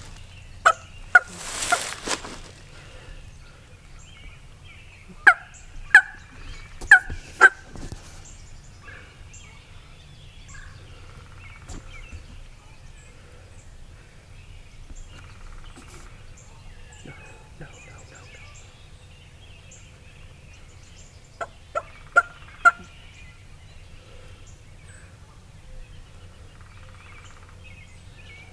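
Wild turkeys gobbling in loud, sharp bouts: a few about a second in, four more between about five and seven and a half seconds, and another cluster of four around twenty-two seconds in. There is a short burst of noise about two seconds in.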